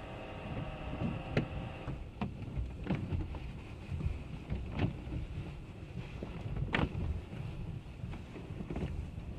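Automatic car wash heard from inside the car's cabin: a muffled, steady low rumble of the wash going over the car, with irregular sharp hits against the body every second or two, the loudest about seven seconds in.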